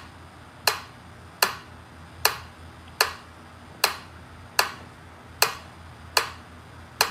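Wind-up pendulum metronome ticking steadily, a sharp click on each swing of its pendulum, a little faster than one tick a second.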